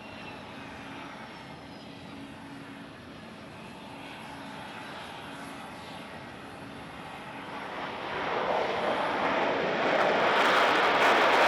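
Kawasaki C-1 jet transport's engines: a steady distant jet rumble that swells into a loud rushing roar from about eight seconds in as the aircraft comes close.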